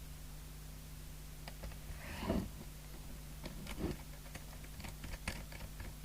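Scattered light clicks and a couple of soft knocks from equipment being handled on a workbench, over a steady low mains hum.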